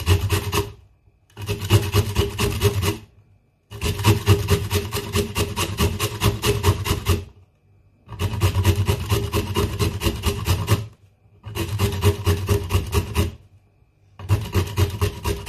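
Bitter kola nut rasped quickly up and down a stainless-steel hand grater resting on a wooden chopping board, in bouts of rapid strokes lasting a few seconds each, with brief pauses between them.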